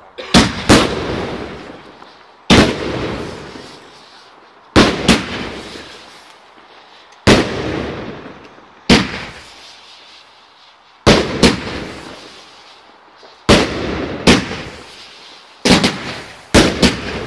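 Aerial fireworks going off in a series of sharp bangs about every two seconds, several coming in quick pairs. Each bang trails off over a second or so of crackle and echo.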